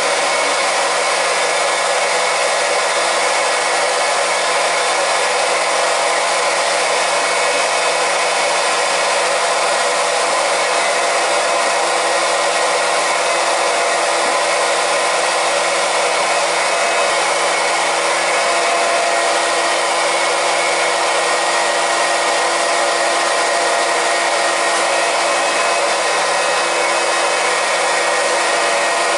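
Small electric transfer pump running steadily, circulating propylene glycol antifreeze from a bucket through a boiler's heating zone to purge the air out of it.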